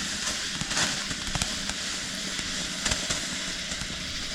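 Consumer firework burning close by: a steady hiss with scattered crackling pops.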